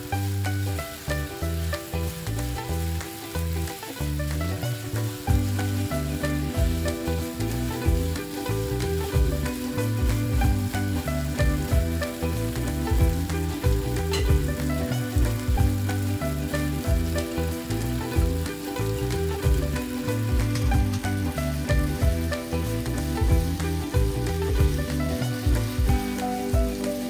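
Sliced bulgogi beef sizzling in a nonstick frying pan, stirred with a spatula that scrapes and taps the pan now and then.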